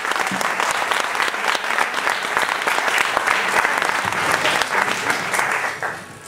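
Audience applauding: a dense clapping of many hands that dies away near the end.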